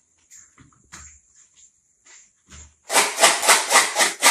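A sound bottle with loose objects inside being shaken hard: a loud, fast rattle of about five shakes a second that starts about three seconds in, after a few faint knocks from bottles being handled. It is the loud kind of sound-box rattle.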